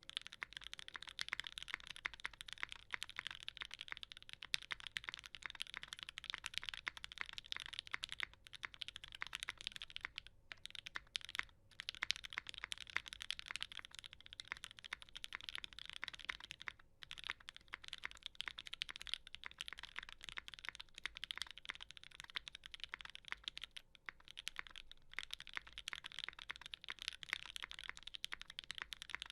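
Fast continuous typing on a custom 65% mechanical keyboard with lubed Tealios linear switches on an FR4 plate and GMK keycaps: a dense stream of key clacks with occasional brief pauses.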